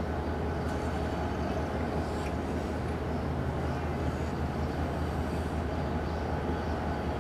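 A locomotive moving at a crawl: a steady, low engine hum and rumble, with no chuffing.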